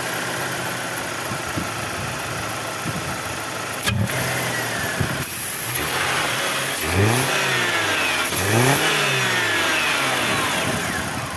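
BMW E90 petrol engine idling steadily, then revving up and dropping back twice near the middle as the electronic throttle butterfly opens under the accelerator pedal. A single knock comes about four seconds in.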